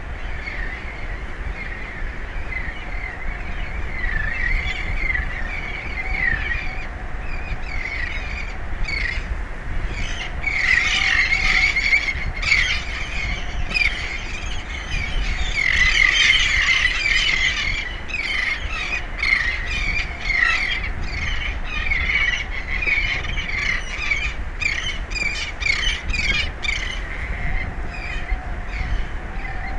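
A flock of birds calling in a dense chatter of short, repeated squawks, busiest in the middle, over a steady low rumble of wind and sea.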